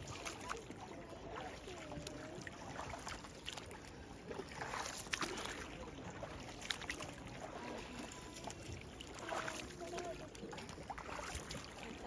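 Coracle on a river: quiet water lapping with a few soft paddle splashes, and faint voices in the background.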